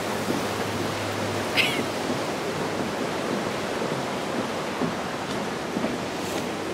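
River water rushing under the bridge, a steady, even hiss. A brief high squeak about a second and a half in.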